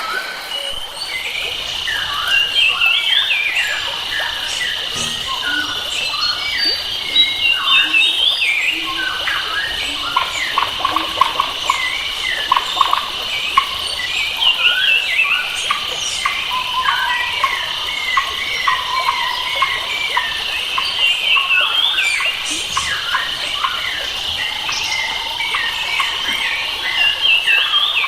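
Forest ambience: many wild birds chirping and whistling in quick overlapping calls over a steady high-pitched insect drone.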